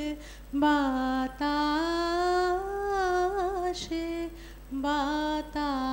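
A woman singing a slow Bengali song solo, holding long notes with small turns and wavers, with short breaks between phrases.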